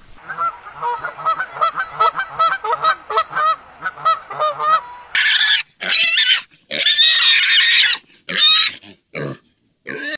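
A group of Canada geese honking in quick, repeated short calls for about five seconds, then pigs squealing in several loud, shrill bursts.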